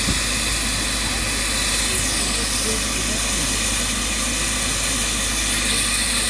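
LNER A3 Pacific steam locomotive Flying Scotsman hissing steam steadily as it moves slowly, with steam blowing off at the top of the boiler near the cab and escaping low beside the wheels.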